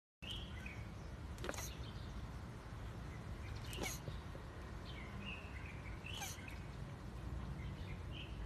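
A male tortoise mating with a stone tortoise statue, with a short, sharp sound about every two and a half seconds, three in all, over steady outdoor noise with faint bird chirps.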